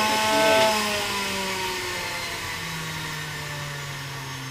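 Centrifugal juicer's motor and spinning basket winding down: a whine that falls slowly in pitch and fades.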